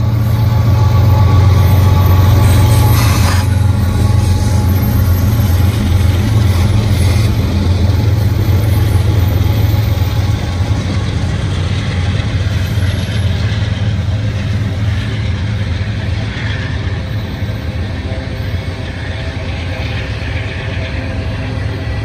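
Diesel freight locomotives passing close at speed, a loud steady engine drone with rolling rail noise, strongest in the first few seconds and easing slowly as the train goes by.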